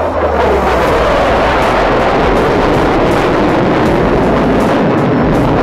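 Jet roar from two fighter jets flying overhead in formation at an air show, loud and steady.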